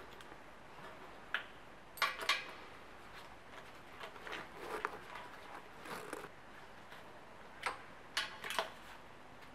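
Wrench working the exhaust-carrier bolts on the crankcase, giving short sharp metal clicks and clinks in irregular clusters, the loudest about two seconds in and again near the end.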